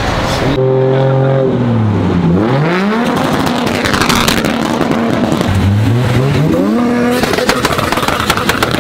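Modified cars driving past one after another, engines revving: the engine note dips and then climbs steeply in pitch twice as they pull away. Near the end a rapid crackle of sharp pops joins the engine noise.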